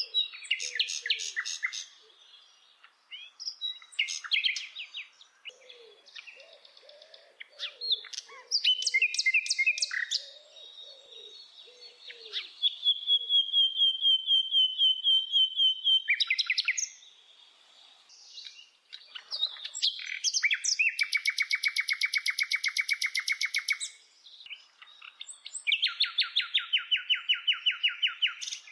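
A songbird singing a varied song of rapid trills and quick runs of repeated notes, phrase after phrase with short pauses; one long even trill comes about halfway, and long buzzy repeated-note runs come in the last third. Softer low calls sound underneath in the first half.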